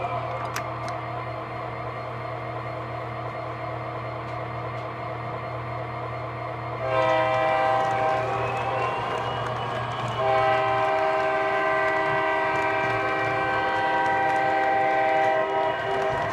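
O scale model diesel locomotive's onboard sound system: a steady diesel engine rumble, then a multi-chime air horn sounding about seven seconds in and again in a longer blast from about ten seconds until near the end.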